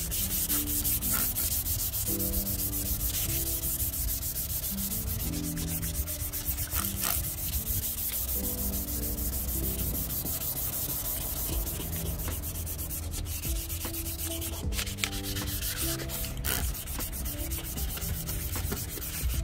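Steady sanding of an oxidised plastic headlight lens with 600-grit sandpaper, taking off basic haze, with a few sharp clicks along the way. A tune of background music plays underneath.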